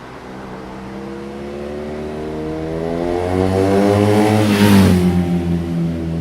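BMW R nineT's boxer twin engine through its stock exhaust with the baffle (dB killer) removed, riding past: the exhaust note grows louder and rises slightly in pitch as it approaches, peaks about four and a half seconds in, then drops in pitch and fades as it goes by.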